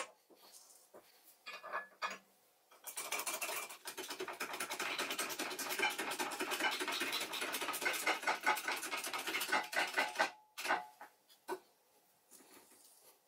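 A hydraulic bottle-jack press bending a flat steel bar over two pipe rollers. A dense run of rapid metallic clicking and scraping starts about three seconds in and lasts about seven seconds, with a few separate light knocks before and after it.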